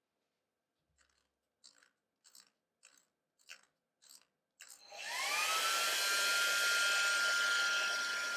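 A rotary dial on a controller turned by hand, giving about seven short clicks roughly half a second apart. Then a Valera hair dryer, switched on by the controller's relay, spins up: its whine rises and settles into a steady high tone over a rushing of air.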